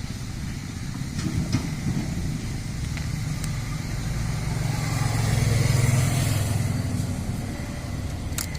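Low engine rumble of a motor vehicle that swells to its loudest a little past the middle and then fades, with a few light clicks.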